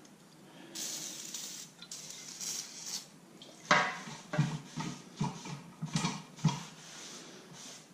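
Handling of metal parts and tools at a workbench: a hissy rubbing or scraping sound, then a run of irregular light metallic clinks and knocks.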